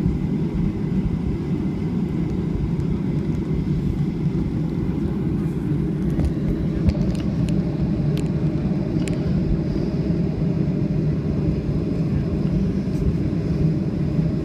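Jet airliner cabin noise while taxiing: a steady low rumble, with a few light clicks and rattles about halfway through. A faint steady engine whine comes in about six seconds in.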